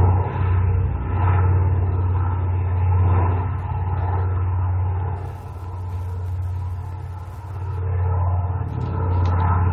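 Recorded aircraft engine drone played back through a small loudspeaker: a steady low engine sound with a strong deep hum, fading somewhat for a few seconds midway and then swelling again.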